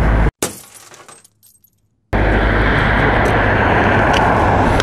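Engine and wind noise of a motorcycle on the move, cutting off abruptly a moment in, falling to near silence for almost two seconds, then returning just as suddenly.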